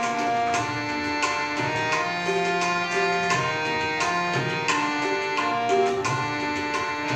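Tabla playing a steady beat under a melody of held notes that step from pitch to pitch: instrumental accompaniment to a Bengali song.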